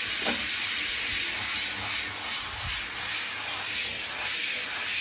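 Handheld shower head spraying water onto a chihuahua in a bathtub, a steady hiss as the shampoo is rinsed out of her coat.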